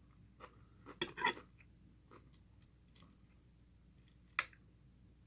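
Cutlery clinking against a plate during eating: a few light clinks about a second in and one sharper clink about four seconds in.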